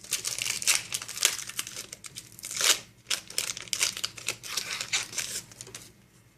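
Foil booster-pack wrapper being torn open and crinkled by hand, a dense run of crackling and ripping that stops about six seconds in.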